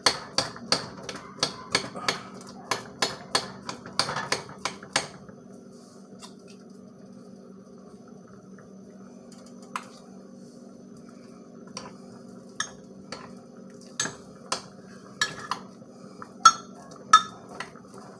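Metal spoon clinking and scraping against a glass measuring cup while thick soap is stirred in a double boiler. Quick clinks come about three a second for the first five seconds, then stop, then come again more sparsely from about twelve seconds in, over a steady low hum.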